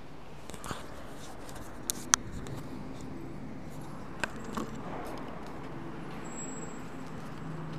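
Steady background hum in a quiet room, broken by a few sharp knocks and clicks, the loudest about two seconds in and two smaller ones a little past four seconds.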